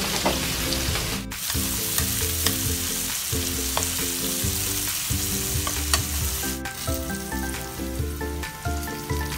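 Carrots and green beans sizzling in oil and butter in a frying pan, with scattered ticks as tongs turn and scrape the vegetables.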